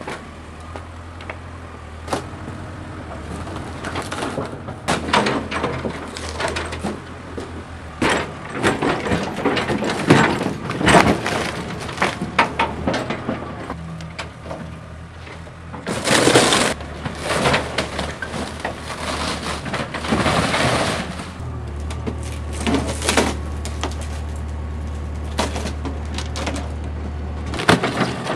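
An excavator bucket crushing and tearing apart a fibreglass Sea Ray boat hull, with repeated cracking and splintering and longer crunching bursts around the middle, over the steady low drone of the excavator's diesel engine.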